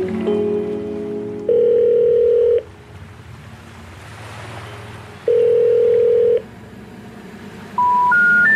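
Background music made of plain electronic tones: musical notes at first, then two long held beeps a few seconds apart, and a short rising run of three beeps near the end.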